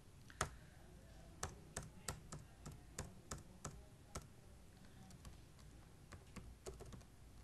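Computer keyboard being typed on: faint, irregular key clicks, a few per second, with one sharper click about half a second in.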